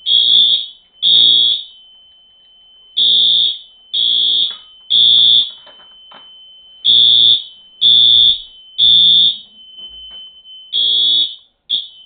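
Home fire alarm sounder blaring in the code 3 temporal pattern: groups of three half-second blasts separated by pauses of about a second and a half. This is the alarm set off by pulling the break rod in an Edwards pull station. A faint steady high tone runs underneath, and the alarm cuts off abruptly after a short blip near the end.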